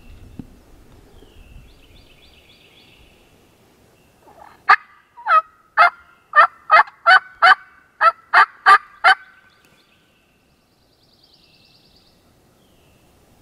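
A hand-worked turkey call, apparently a box call, giving a run of about eleven loud hen yelps, roughly two a second, starting about four and a half seconds in and lasting some four and a half seconds. It imitates a hen to draw in a distant gobbler. Faint songbird chirps sound before and after.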